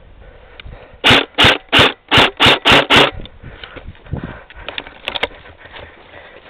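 M4-style airsoft rifle fired semi-automatically: seven quick shots about a third of a second apart, then fainter rustling and small clicks.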